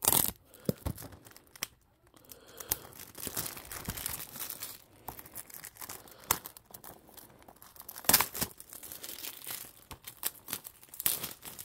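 Plastic shrink wrap being torn and crumpled off a 4K Blu-ray case: irregular crackling and rustling, with sharper rips right at the start, about eight seconds in, and near the end.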